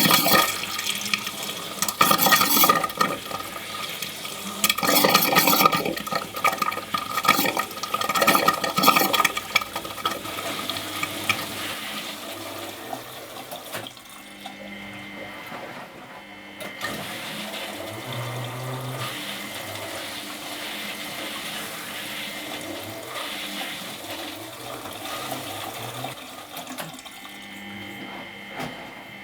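Water rushing into the drum of a Miele Professional WS 5426 washing machine as it fills, loud and surging for about the first ten seconds, then settling to a quieter, steadier flow.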